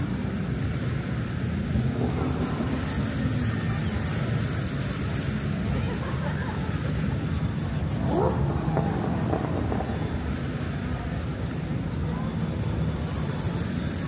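Steady wind on the microphone over the wash of surf, with a brief rising tone about eight seconds in.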